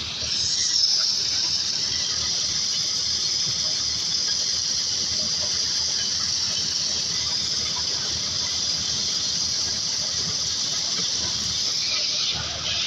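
Corn sheller running steadily: a continuous high hissing rush over a dense, fast rattle.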